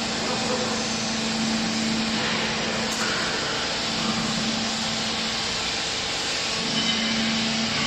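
Hydraulic baler's motor and pump running with a steady hum and even whirring noise.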